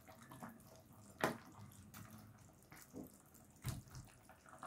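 Metal spoon stirring a pot of simmering curry chicken: faint sloshing of the sauce, with light knocks of the spoon against the pot, the sharpest about a second in and again later.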